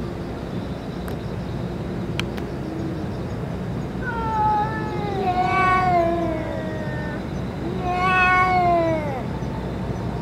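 Stray cats in a face-off: a low growl runs on and off underneath, and two long yowls rise up about four and eight seconds in, each sliding down in pitch, the threat calls of a cat standoff.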